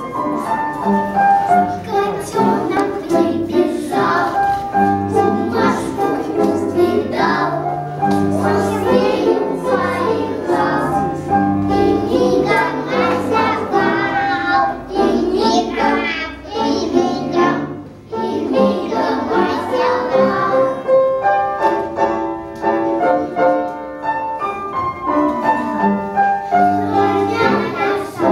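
A group of young boys singing a song together over a musical accompaniment.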